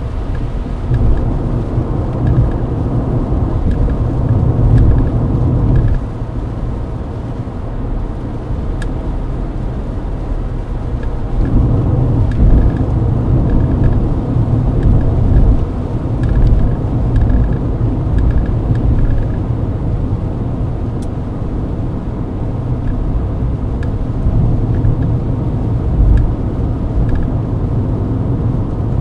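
Mercedes-Benz W124 driving on a wet expressway, heard from inside the cabin: a steady low rumble of engine and tyres that swells louder for a few seconds near the start and again in the middle. A faint, regular ticking comes through for several seconds in the middle.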